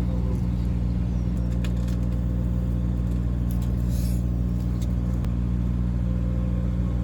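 Excavator's diesel engine running at a steady speed, with a few light clicks and clanks over it.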